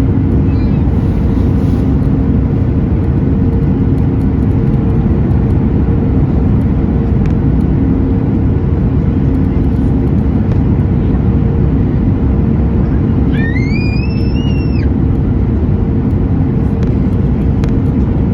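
Steady cabin noise inside a Boeing 737 MAX from its CFM LEAP-1B engines and airflow, a loud even rush with a constant low hum. About 13 seconds in, a short tone rises and then holds for a moment.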